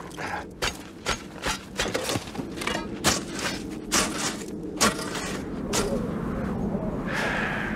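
A hand tool chopping and scraping at frozen gravel and packed snow: a run of sharp, uneven strikes about every half second, stopping about six seconds in. A steady hiss with a faint tone comes in near the end.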